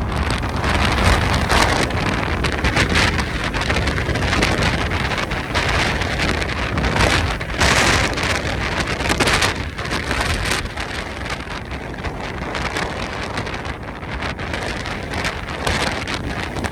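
Gusty Santa Ana wind blowing hard and buffeting the microphone with a low rumble, with rushing hiss that surges in gusts, strongest about a second in and again around eight seconds in.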